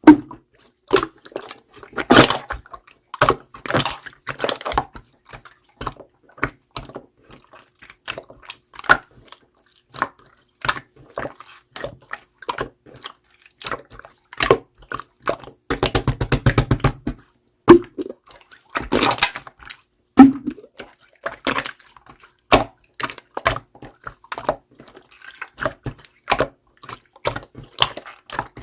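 Clear slime being squeezed, stretched and poked, giving wet sticky pops and clicks at irregular intervals, with a quick run of crackling pops about sixteen seconds in.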